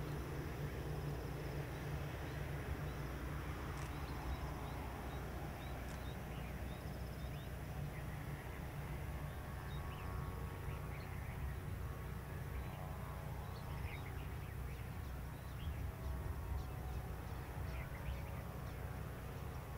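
Boeing 787 taxiing at idle: a steady low rumble, with a faint whine building from about halfway through. Birds chirp in short, scattered calls throughout.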